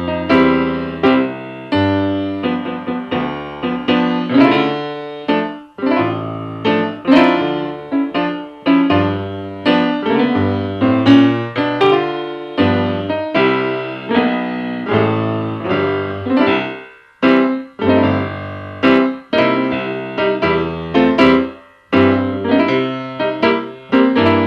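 Background piano music: chords and melody notes struck and left to ring over a bass line.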